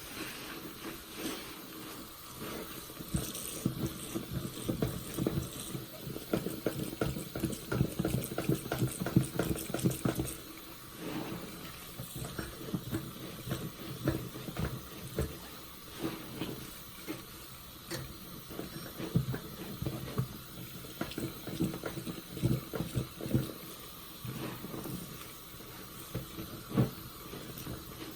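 Soapy sponge squeezed and released over and over by hand, wet squelching and crackling lather. The squeezing is busiest in the first third, then comes in shorter bouts with brief pauses.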